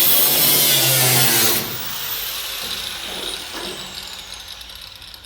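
Handheld power cutting tool running loudly against sheet metal for about a second and a half, then let off and spinning down with a slowly falling whine.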